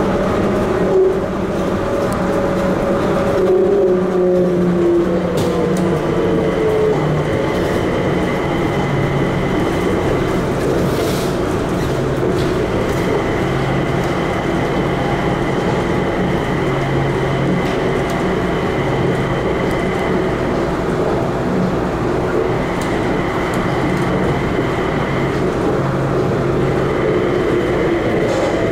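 Inside a Mitsubishi Crystal Mover rubber-tyred people-mover car running between stations: a steady rolling noise with several steady tones from the drive. A few of these tones glide lower in pitch in the first several seconds, and there is a brief knock about a second in.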